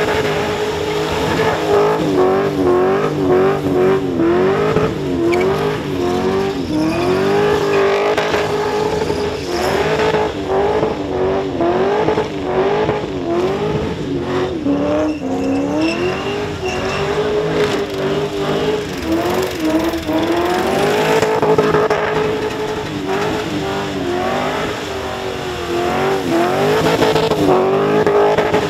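Holden Commodore ute doing a burnout: the engine is held at high revs, dipping and climbing back again every second or two, while the spinning rear tyres squeal.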